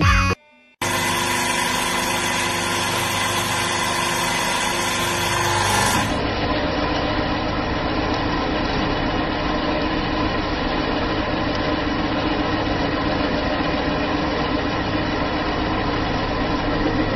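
Hydraulic press running, a steady motor-and-pump whir with a low hum, as the ram presses down on a chocolate-coated ice cream cone. The sound drops out briefly just after the start and changes character at a cut about six seconds in.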